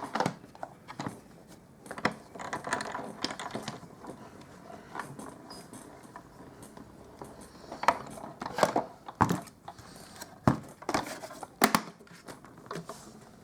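Cardstock and a metal die being handled and run through a hand-cranked die-cutting machine: scattered clicks and knocks with some soft rustling, the crank's mechanism clicking as the piece is cut.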